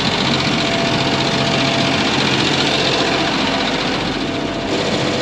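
Engine running steadily, with an even drone; the sound shifts abruptly about four and a half seconds in.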